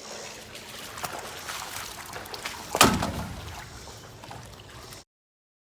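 Pool water sloshing and splashing as muck is scooped out of a shallow, partly drained swimming pool, with one loud splash about three seconds in. The sound cuts off abruptly about five seconds in.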